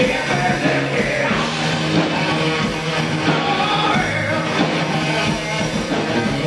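Live heavy metal band playing at full volume: electric guitar, bass guitar and drums, with a singer on the microphone.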